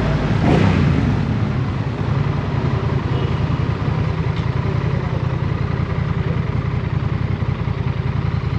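Honda CMX 1100 Rebel's parallel-twin engine: a brief louder swell about half a second in, then from about two seconds on it settles into a steady, even idle with a fast low pulse.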